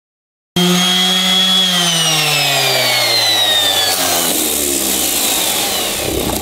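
Electric random orbital sander running against a cured epoxy-and-fiberglass hole patch. It starts abruptly about half a second in, and its motor note slowly drops in pitch before dying away near the end.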